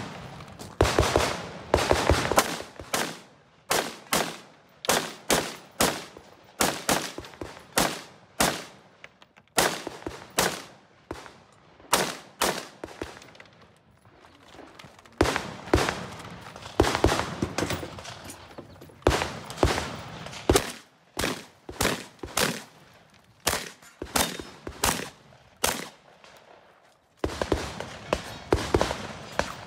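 Gunfire from a 3-gun competitor shooting a stage: dozens of shots in quick pairs and fast strings, with short breaks around 14 seconds and 27 seconds in.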